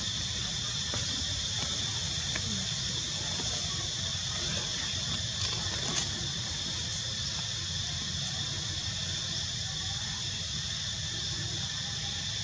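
Steady high-pitched chorus of insects, several even tones held unbroken, over a low steady rumble, with a faint tick about six seconds in.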